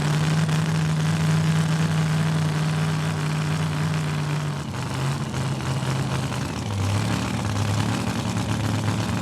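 Large pulling-vehicle engine running steadily at idle. Its pitch steps down a little about halfway through and again near the end.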